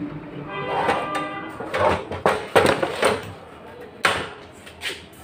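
Sharp knocks and clatter of metal parts on an old gas stove being handled, several separate strikes.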